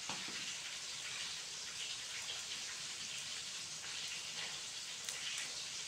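A steady hiss with a few faint ticks and crackles, most of them about five seconds in.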